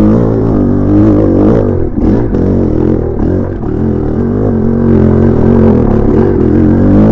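Freshly rebuilt Maico 500 single-cylinder two-stroke dirt bike engine being ridden hard on a trail during break-in, its revs rising and falling with the throttle and easing off briefly a few seconds in.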